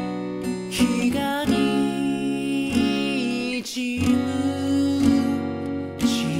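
Acoustic guitar strummed under a harmonica, played from a neck holder, carrying the melody in long held notes with some bends.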